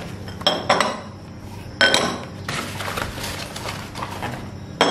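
Cut-glass bowls clinking against each other and the table as they are lifted out of a cardboard box and stacked, a few sharp clinks with a brief glassy ring, the loudest about two seconds in. Paper packing in the box rustles between them.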